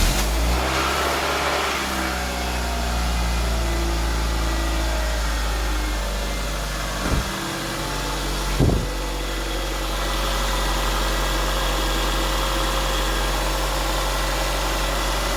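1996 Toyota Celica's four-cylinder engine catching on a cold start and settling into a steady idle. Two brief thumps sound about seven and nine seconds in.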